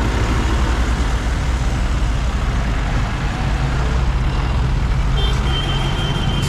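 Bus and jeep engines running at close range as traffic pulls away, a steady low rumble. A high steady beep, like a vehicle horn or reversing beeper, sounds for about a second near the end.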